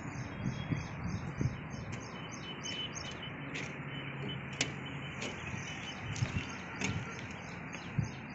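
Rapid, evenly repeated high-pitched chirping, several pulses a second, over a noisy background, with a few scattered clicks.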